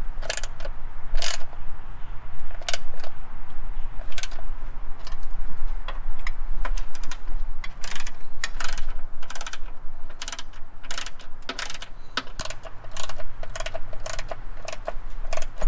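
Hand ratchet wrench with a 10 mm socket clicking in short irregular runs as bolts are tightened.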